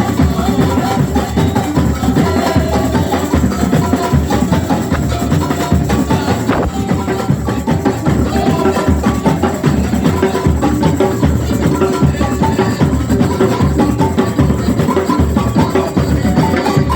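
Drums and percussion playing live together, a dense, steady rhythm of strikes with no pause.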